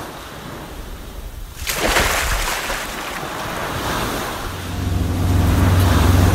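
Sea waves washing with wind, swelling into a louder rush about two seconds in. About halfway through, a boat engine's steady low drone comes in and grows louder.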